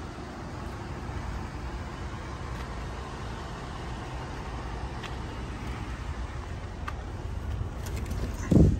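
Steady low vehicle rumble, then a single heavy thump near the end as someone climbs into the pickup truck's cab.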